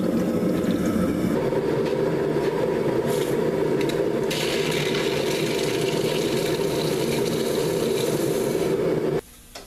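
Red-hot steel bar quenched in a tank of water: steady boiling and hissing as the water flashes to steam around the glowing metal. The hiss grows stronger about four seconds in and the sound cuts off suddenly near the end.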